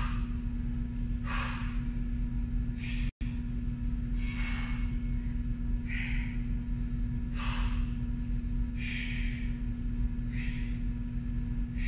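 A woman breathing hard through push-ups, a short sharp breath about every second and a half, over a steady electrical hum. The sound cuts out for an instant about three seconds in.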